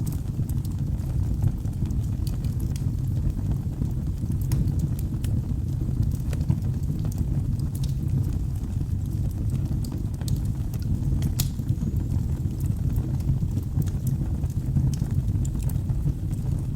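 Wood fire burning in a fireplace: scattered sharp crackles and pops over a steady low rumble of the flames, with one louder pop about eleven and a half seconds in.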